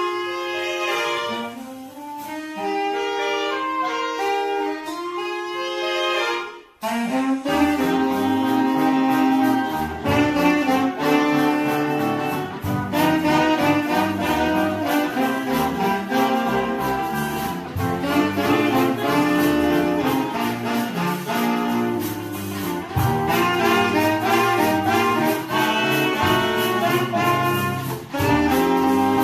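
Saxophone quartet, including a baritone saxophone, playing jazz in harmony. About seven seconds in the music breaks off briefly, then resumes fuller and louder with a deeper bass line.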